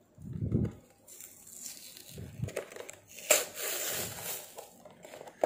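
Toy blister packaging being opened by hand: plastic crinkling and crackling, with dull handling bumps and a sharp snap about three seconds in.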